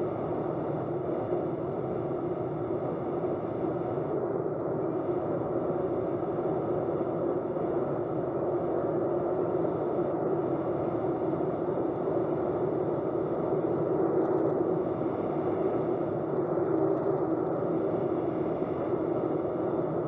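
Rotax engine of a light tailwheel aircraft running steadily, a constant drone.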